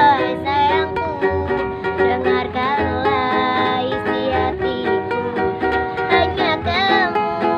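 A young girl singing a dangdut-style pop song, accompanied by a strummed ukulele, with a low pulsing beat underneath.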